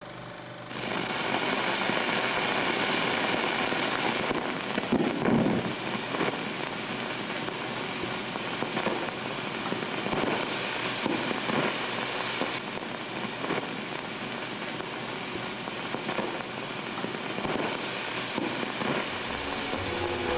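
Crackling hiss of a worn old film soundtrack, with scattered pops and clicks, coming in about a second in and running under a countdown leader.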